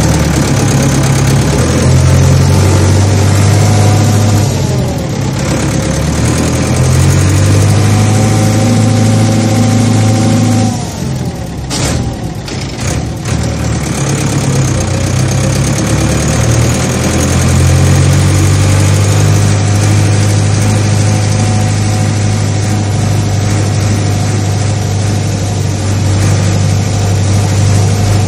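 A heavy engine running with a deep, steady drone. Its revs shift a few times, then wind down sharply about eleven seconds in, with a few knocks. It then builds back up and holds steady.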